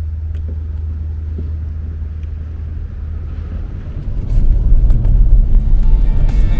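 Car road and engine noise while driving: a steady low hum that grows louder and rougher about four seconds in.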